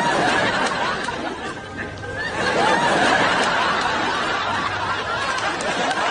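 People laughing and snickering, with background music.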